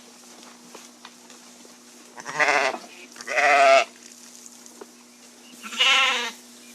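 Sheep bleating three times, each bleat about half a second long with a wavering, quavering pitch; the second follows the first closely and the third comes a couple of seconds later.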